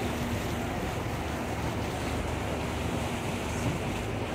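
Tour boat's engine idling at the dock, a steady low rumble and hum, with wind on the microphone.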